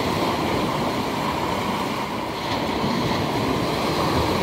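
Sea surf breaking and foaming over a chalk-boulder beach in a steady rush.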